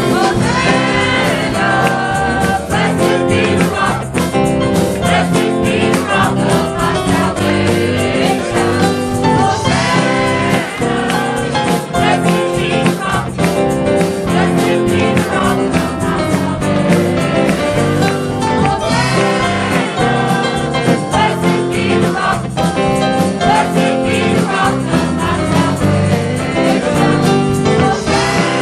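Church worship music recorded at a service: singers with a band performing a gospel-style worship song.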